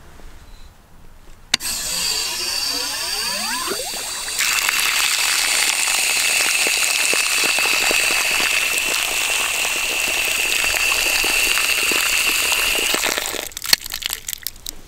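A Woodford Iowa frost-free yard hydrant is opened with a sharp click of its handle, and water gushes from the spout. A falling whistle sounds at first, then a steady loud rush with a high whistle. About 13 seconds in it is shut off, and a few drips and clicks follow. The flowing water shows that the newly buried line has not frozen.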